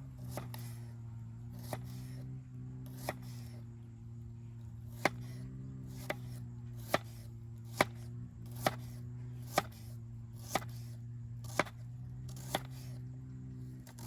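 Knife chopping on a cutting board: single sharp strokes, slow and even at about one a second, settling into a steady rhythm about five seconds in.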